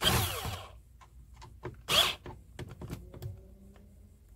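Cordless drill/driver running in short bursts as it drives the screws holding a car-audio speaker into a truck's door panel. There is a burst of about half a second at the start, falling in pitch as the motor winds down, and a shorter burst about two seconds in, with light clicks between.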